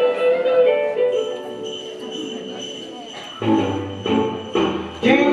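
Jingle bells ringing through the tail of a held musical note. About three and a half seconds in, a song starts with loud chord hits and bass, a few to a second.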